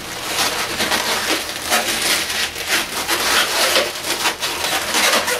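Inflated latex twisting balloons (260s) rubbing and squeaking against each other as they are handled and twisted into place, a run of short irregular squeaks and creaks.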